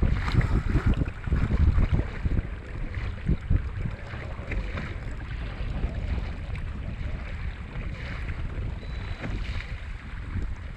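Wind buffeting the microphone over choppy sea water washing against a kayak, in gusts that are strongest in the first couple of seconds and then ease to a steadier rumble.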